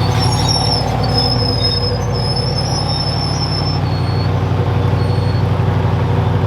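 Truck engine running steadily at an even speed, with thin high-pitched whines coming and going on top.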